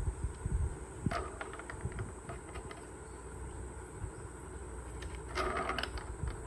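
A few soft taps and a short rustle a little after five seconds as a cat paws at the rail and corner pocket of a small tabletop pool table, over a constant low rumble.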